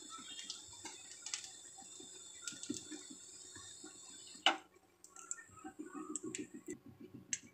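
Cooking oil heating in a metal kadhai on a gas stove, faintly crackling and ticking as leftover spice bits and traces of moisture start to fry. A single sharp click comes about halfway through.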